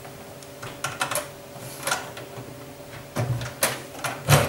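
Hard plastic clicks and knocks as a hard drive is pulled out of a Buffalo LinkStation Duo NAS bay, its plastic stopper pressed down while the pull ring is tugged. The clicks come irregularly, a few at first, then more and louder from about three seconds in.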